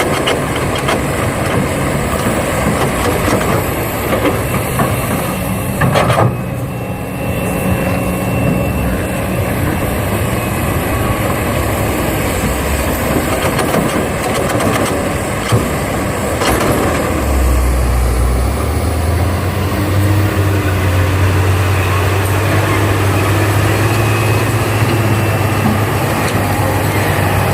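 Engine running steadily, with a sharp knock about six seconds in. About seventeen seconds in, a deeper, steady engine hum comes in and holds.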